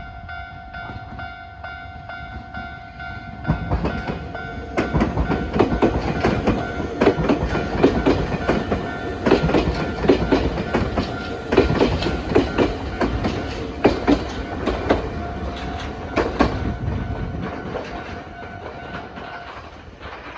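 Level crossing alarm ringing while a Nankai Railway electric train passes over the crossing. The train's wheels clack over the rail joints from about three seconds in until near the end, then fade. The alarm stops just before the end.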